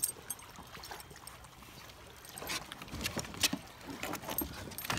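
Light clicks and knocks as dachshunds shift their feet on a plastic sit-on-top kayak's deck, with faint jingling of collar tags. Mostly quiet for the first two seconds, the knocks coming from about two seconds in.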